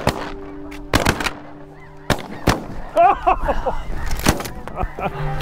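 A volley of shotgun shots fired at landing snow geese, several blasts spaced over a few seconds, some in quick pairs. Snow geese honk between the shots, most densely from about three seconds in and again near the end.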